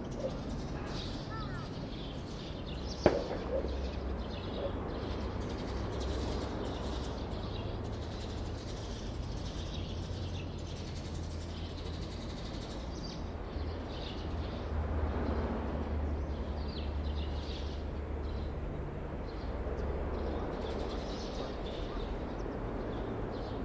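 Outdoor ambience: birds chirping now and then over a steady low rumble, with one sharp click about three seconds in.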